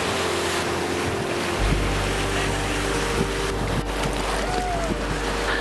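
Small waves of shallow surf washing in and breaking at the shore, with wind buffeting the microphone.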